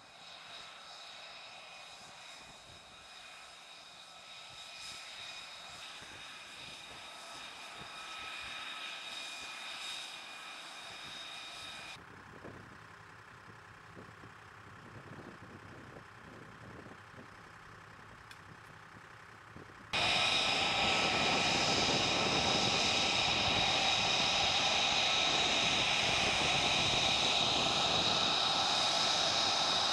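Lockheed Martin F-35B jet engine running on the ground: a steady jet whine with several steady high tones. About twelve seconds in it drops to a quieter, duller sound, and about twenty seconds in it jumps to a much louder, shriller whine.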